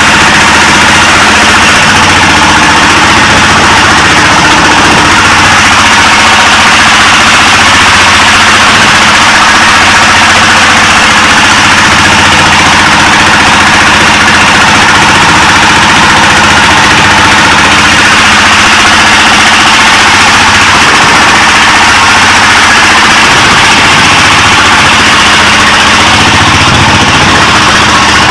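Bored-out ZS1115 single-cylinder diesel driving a boat, running steady and loud with the throttle wide open. The engine is at full throttle and still not loaded enough, which the builder takes as a sign that it needs a larger propeller.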